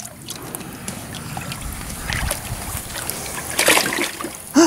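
Water splashing and sloshing in a galvanized stock tank as a Border Collie wades through it and plunges its face in after goldfish, with a busier flurry of splashes about three and a half seconds in.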